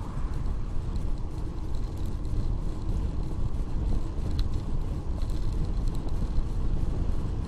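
Wind buffeting the microphone of a bicycle-mounted camera riding at about 27 km/h: a steady, low, gusty rumble.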